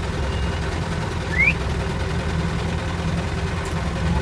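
Engine of the caged safari vehicle idling with a steady low rumble; a short rising chirp about a second and a half in.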